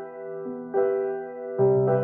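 Background music: slow piano chords, held and changing a couple of times, with a deeper bass note coming in near the end.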